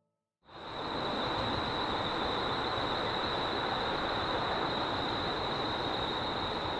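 Steady outdoor background noise with a constant high-pitched whine running through it, starting suddenly about half a second in and dropping away near the end.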